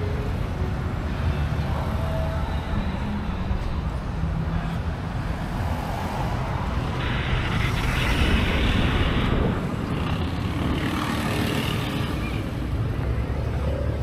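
Street traffic noise: vehicle engines running and passing, with a steady low rumble and a louder pass about halfway through.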